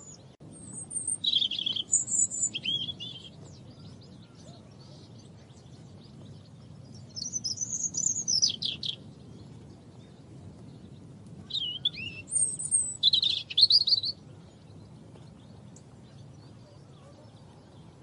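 European robin singing: three short, high, warbling phrases a few seconds apart, over a faint steady low background rush.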